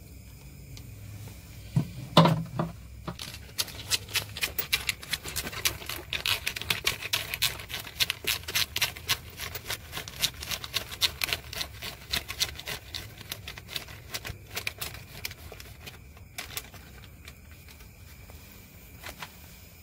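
A few knocks about two seconds in, then a thin plastic bag crinkling and rustling in the hands in quick, irregular crackles for about twelve seconds, dying away with a few last rustles near the end.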